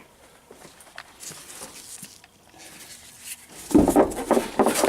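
A broken washing-machine suspension spring being worked free inside a front-loader's cabinet: a few faint clicks, then from near the end a loud run of rapid metal clattering and scraping.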